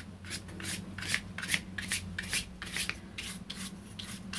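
Flat bristle paintbrush dragging thick Fresco Finish chalk paint across card in quick, short up-and-down strokes, a dry scratchy rasp about three or four times a second.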